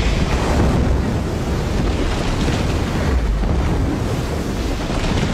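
Ocean surf breaking and churning against rocks, a steady rushing wash with a deep rumble underneath.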